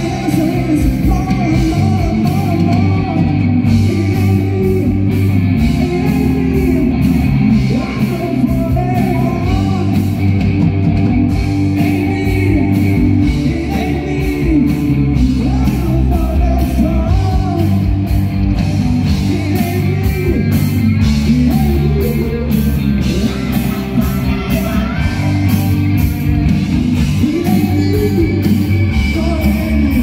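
Live rock band playing: a woman sings over electric guitars, bass guitar and drums, with a steady drum and cymbal beat.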